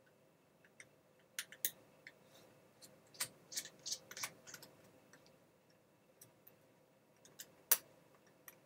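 Small Phillips screwdriver working screws out of a laptop's display lid: scattered light clicks and ticks of metal on screw heads and plastic, bunched in the middle, with one sharper click near the end.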